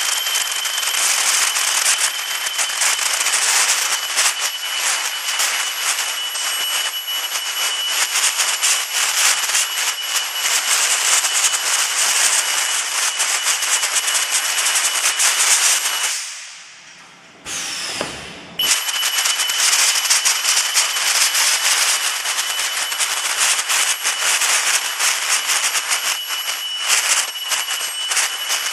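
Solar panel ultrasonic welding machine running: a loud, dense, crackling hiss with a steady high whine over it. It dies away about 16 s in and starts again abruptly about two seconds later.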